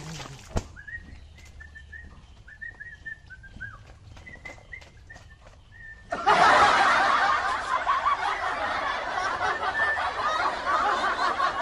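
A bird chirping in short whistled notes over a quiet background. About halfway through, a sudden loud, dense wash of sound takes over and stays to the end.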